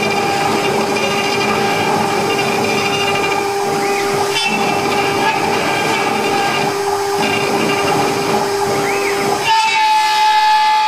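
CNC router spindle whining steadily as a tapered engraving bit carves MDF, with hissing cutting noise beneath the whine. About nine and a half seconds in the sound changes abruptly: the low cutting noise drops away and the whine shifts slightly higher.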